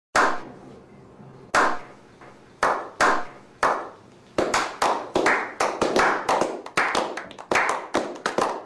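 A slow clap: single hand claps, each ringing out with an echo, about a second apart at first. From about four seconds in they come faster and closer together.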